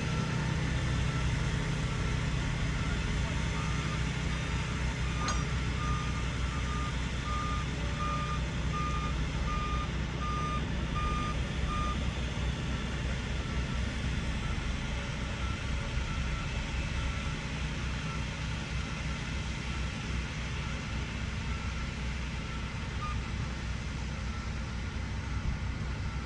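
Diesel engines of railway maintenance-of-way machines running steadily at idle, with a backup alarm beeping about twice a second, loudest for several seconds in the middle.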